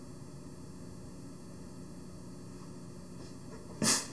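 Steady low hiss and hum of the recording's background noise, then about four seconds in a short, sharp breath through the nose.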